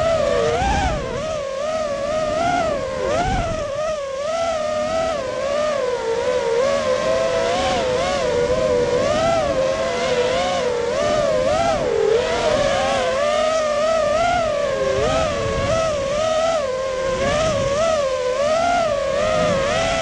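FPV racing quadcopter's brushless motors whining as heard from the onboard camera, the pitch constantly rising and falling with the throttle through a fast lap, with occasional low wind rumble on the microphone.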